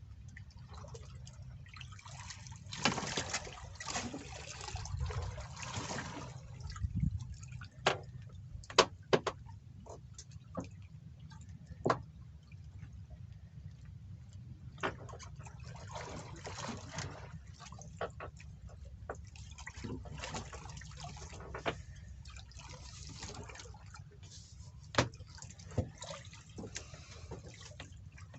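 Water sloshing and dripping, with a steady low rumble underneath and several sharp knocks, the loudest about nine seconds in and again near the end.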